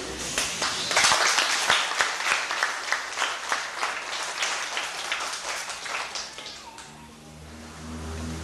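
A small audience applauding: many quick, uneven hand claps that die away about six and a half seconds in. A low steady hum comes in near the end.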